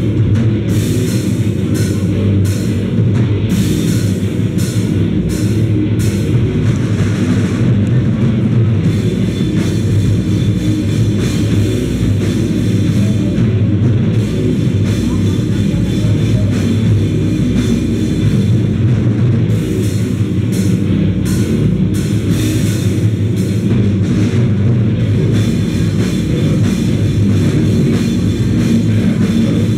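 A live band playing loud, heavy music: distorted electric guitar over a fast drum kit. Cymbals crash hard through the first third and again past the middle.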